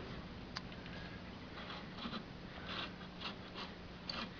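Faint handling noise: soft brief rustles and a light click, scattered and irregular, over a faint steady low hum.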